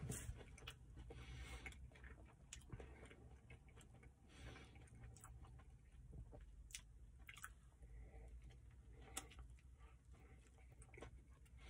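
Faint close-up chewing of a mouthful of burrito, with soft scattered mouth clicks, and another bite taken near the end, over a low steady hum.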